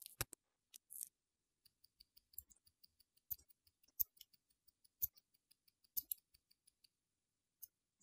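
Light metallic clicks of watchmaker's tools on an Audemars Piguet automatic watch: a sharp click at the start as the hand remover levers the hands off the dial, then a quick run of faint clicks, about five a second, with a few louder taps as tweezers work on the movement.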